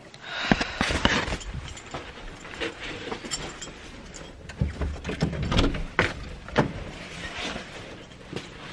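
Handling noise: rustling with scattered knocks and clicks at irregular moments, as belongings and the recording phone are moved and jostled.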